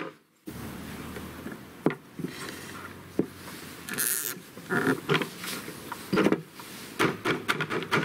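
Small wooden mallet knocking green-wood stick perches into drilled holes in a log, in several separate sharp knocks at irregular spacing, with handling rustle between.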